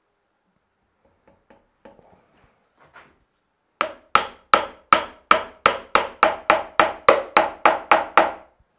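A steady run of about fourteen sharp taps, roughly three a second, starting about four seconds in, as a ball-peen hammer head is driven down onto its new wooden handle; each tap rings briefly. Before the taps there are a few faint handling knocks.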